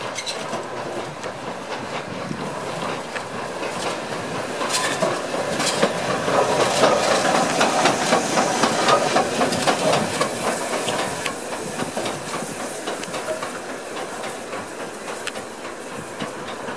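GNR N2 class 0-6-2 tank steam locomotive passing close by, with steam hissing and wheels clattering on the rails. It grows louder to a peak about seven to ten seconds in, then fades.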